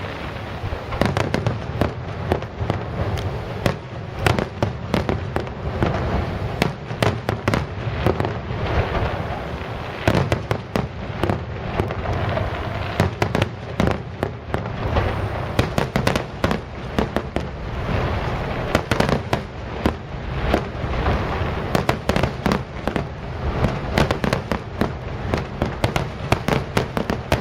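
Aerial fireworks display: a dense, continuous barrage of shell bursts, many sharp bangs and crackles in quick succession over a steady low rumble of echoing booms.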